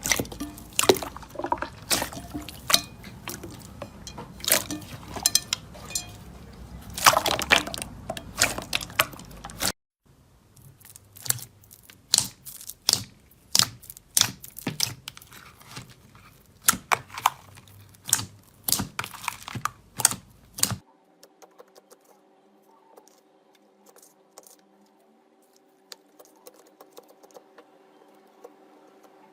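Slime being squished and worked by hand, giving quick runs of sharp wet clicks and pops. A little past two-thirds of the way in the clicking stops and only a faint steady hum with an occasional soft click remains.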